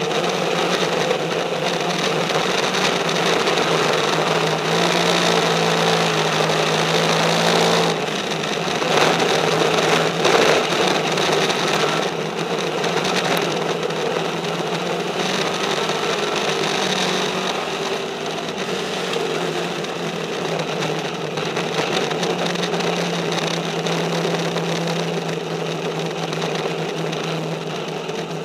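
Race car engine running at a fairly steady speed on track, heard from inside the cockpit, with the car's rattle and road noise mixed in.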